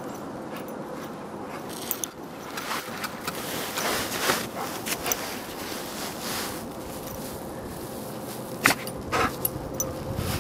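Irregular crunching and scuffing of footsteps in snow, beginning about two seconds in, with one sharper knock near the end. A faint steady hum runs underneath.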